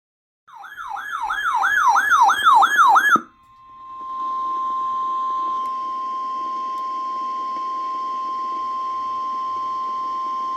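A warbling siren-like tone sweeps up and down about three times a second, growing louder, then cuts off a little after three seconds in. It is followed by a single steady tone, the NOAA Weather Radio 1050 Hz warning alarm tone, which signals that a warning message is about to be broadcast.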